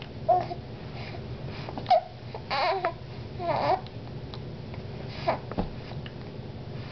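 A small child hiccuping: three short, sharp hiccups spread over several seconds, with two longer babbling sounds between them.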